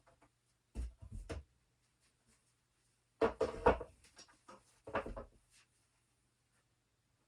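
Three short bursts of knocking and clattering, like hard wooden objects being handled and set down.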